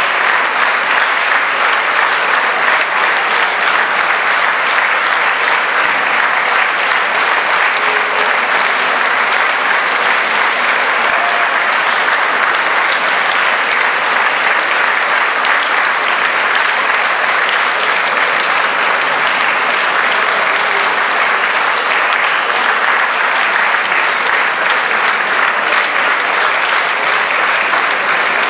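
Large audience applauding, a dense, steady clapping that does not let up.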